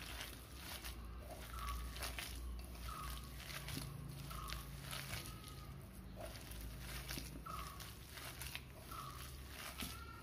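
Hands kneading sliced onion and urad dal flour dough in a steel bowl: repeated soft squishing and rustling, with short squeaks every second or two.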